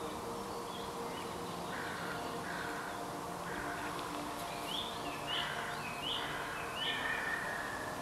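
Bird in woodland calling repeatedly: a run of about seven short, harsh calls, roughly one every two-thirds of a second, starting about two seconds in.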